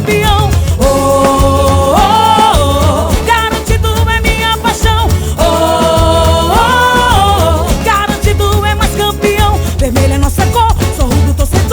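Festa junina quadrilha song in boi toada style: a steady percussion beat and heavy bass under a melody, with long held notes with vibrato twice.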